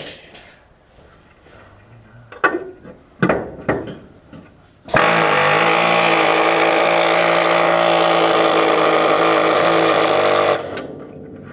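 Pneumatic air chisel hammering steadily for about five and a half seconds, from about five seconds in, cutting through a seized door hinge pin. A few sharp metal knocks come before it.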